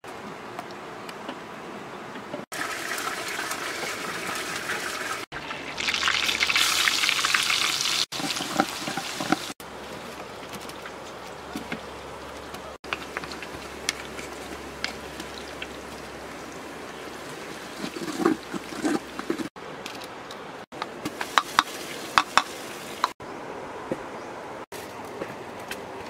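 Frying sizzle in a hot pot as ingredients go into the oil, loudest for a few seconds early on, with scattered clicks and knocks of a utensil against the pot. The sound changes abruptly several times.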